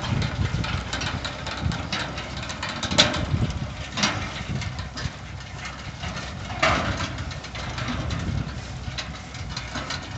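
An engine running steadily while a bale elevator carries a hay bale up to a truck bed, with a few sharp knocks from the lift, the loudest about three, four and seven seconds in.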